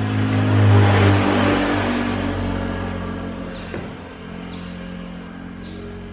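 A motor vehicle's engine, steady and pitched, growing louder to a peak about a second in and then fading away over the next few seconds. Water sloshes in a plastic basin as a whetstone is rinsed by hand.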